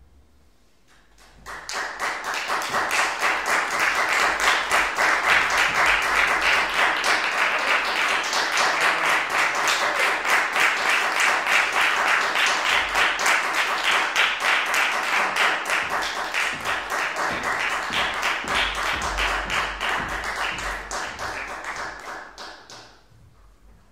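Audience applauding: dense clapping that starts about a second and a half in, holds steady, and dies away near the end.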